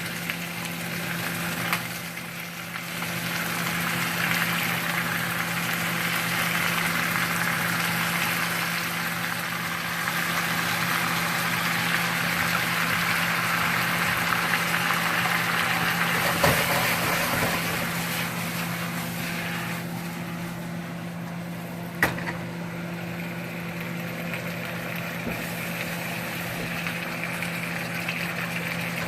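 Pork, peppers and onions sizzling in a hot wok after the sauce goes in, a steady sizzle that swells and then eases off past the halfway point, over a steady low hum. A single sharp click a little past two-thirds of the way through.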